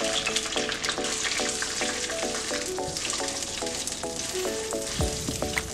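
Dried quinoa sizzling steadily as it fries in hot olive oil in a pan, stirred with a silicone spatula.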